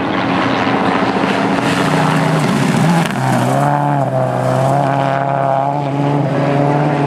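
Rally car engine running hard at high revs, with a drop in pitch about three seconds in, after which it holds a steady note.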